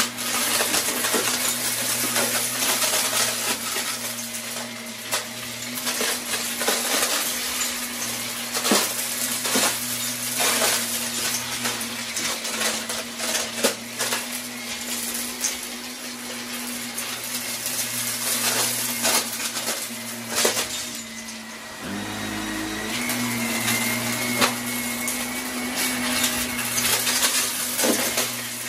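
Bagless upright vacuum cleaner running steadily on carpet, with frequent crackles and rattles as small crunchy bits of debris are sucked up into the clear canister. About three-quarters of the way through, the motor's pitch shifts up briefly before settling back.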